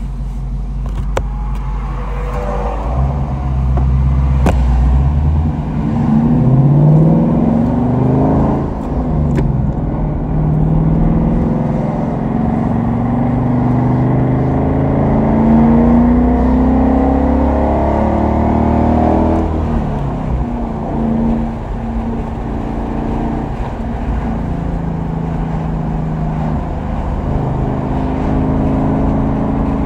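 Ford Mustang GT's 5.0-litre V8 through a Borla S-Type exhaust, heard from inside the cabin, accelerating through the gears of the manual gearbox: the pitch climbs and drops back with each upshift. About two-thirds of the way in it settles into a steadier, lower cruising drone.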